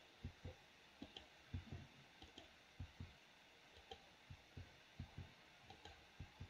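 Faint clicking of a computer keyboard and mouse buttons, short sharp clicks often in pairs, two or three a second, as keys are pressed to insert animation keyframes.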